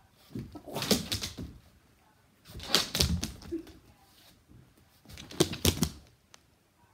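A German Shepherd moving about right beside the phone on a hard floor: three bursts of close scuffling and rapid clicking, about a second each.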